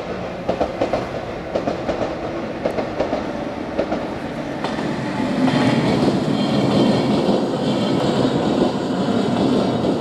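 Electric train passing over a level crossing, its wheels clacking over the rail joints; the running noise grows fuller and louder from about halfway in as the cars go by.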